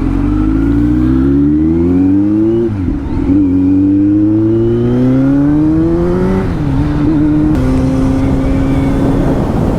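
Kawasaki Z900's inline-four engine, through an Arrow full-system exhaust, accelerating hard: the revs climb for about two and a half seconds, dip at an upshift about three seconds in, climb again for about three seconds, then drop and hold steady at cruise.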